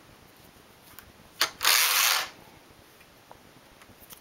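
Neva-2 hand knitting machine: a couple of clicks, then the carriage slid once across the needle bed with a short mechanical rattle lasting under a second, and a faint click later.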